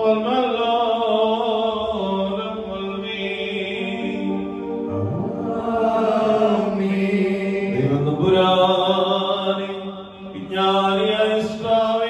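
A priest chanting a liturgical prayer into a microphone in long held notes with slow glides between them.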